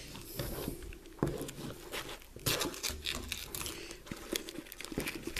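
Handling noise from a small first-aid pouch being sorted through: rustling and crinkling of its wrapped gauze and QuikClot packets and fabric, with scattered light clicks and taps.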